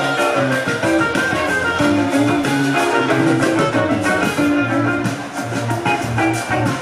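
Live band playing a samba, with horns, guitar, bass and percussion.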